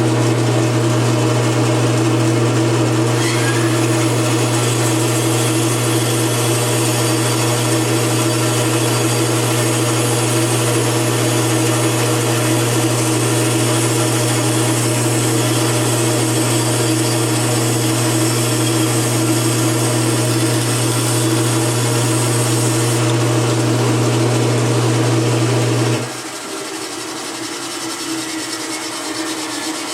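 Bandsaw running with a strong, steady motor hum while its blade cuts through a wooden block. The hum stops abruptly about four seconds before the end, leaving a quieter noise.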